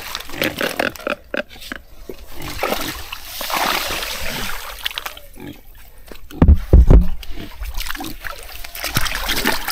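Splashing and sloshing in shallow, muddy water as fish are caught by hand. There are several heavy thumps about six and a half seconds in.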